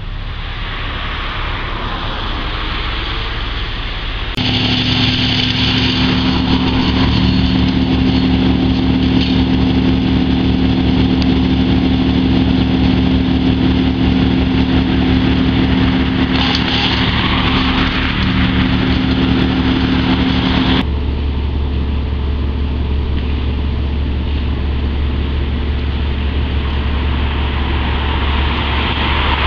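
A large engine running steadily at a constant speed. The sound changes abruptly twice, about four seconds in and again about twenty-one seconds in.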